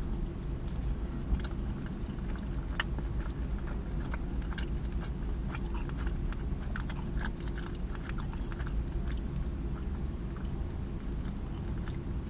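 Close-up chewing of a mouthful of pizza: scattered wet mouth clicks and smacks throughout, over a steady low hum.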